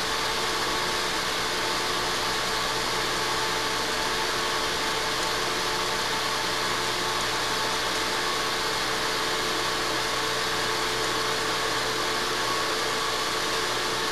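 Metal lathe running steadily at low speed: an even motor hum with a few constant tones as the spindle turns the work onto a half-inch-20 tap held by a ratchet.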